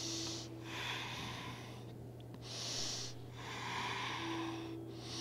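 A person breathing slowly and audibly in and out, about two full breaths, each breath a soft rush of air.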